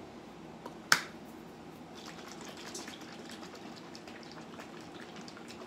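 A sharp click from the plastic cap of a coconut creamer bottle about a second in, then the creamer being poured out with a faint trickle.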